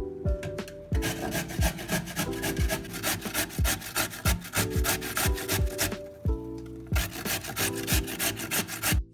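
Carrots being grated on a hand grater: quick rasping strokes in two runs, with a short break about six seconds in, over soft background music.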